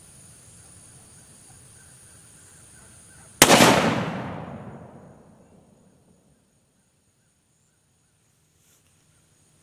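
A single gunshot from a Uberti replica Colt 1847 Walker .44 cap-and-ball revolver, loaded with 50 grains of black powder and a .457 round ball, about three and a half seconds in. It is a sharp report with an echo that fades away over about two seconds.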